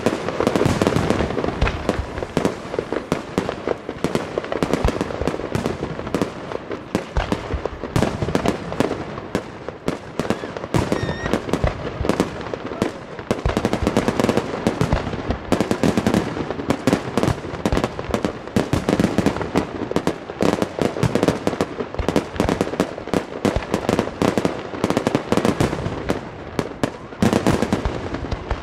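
Fireworks display: aerial shells bursting in rapid succession, a dense, continuous run of bangs with several reports each second, thinning briefly about ten seconds in.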